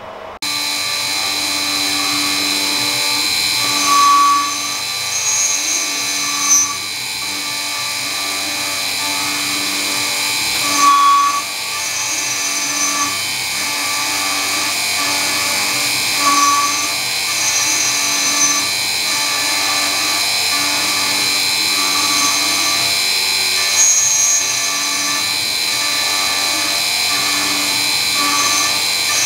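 CNC milling machine cutting a metal part with an end mill, its spindle driven by a three-phase motor on a variable-frequency drive through a toothed timing belt. It makes a steady high whine with cutting noise, swelling briefly every five to seven seconds as the cutter bites harder. The sound starts suddenly about half a second in.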